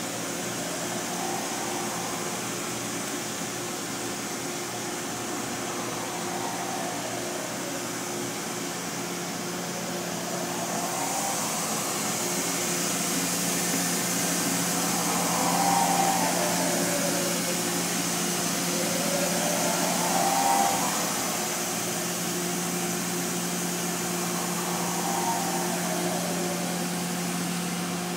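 Makino S56 vertical machining center running: a steady machine hum under a hiss that grows louder about a third of the way in, with whines that rise and fall in pitch several times.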